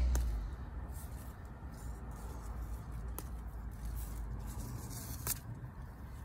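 Yellow bean plants rustling as pods are picked by hand, with three short sharp snaps as pods break off their stems, the last about five seconds in the loudest. A low steady rumble runs underneath.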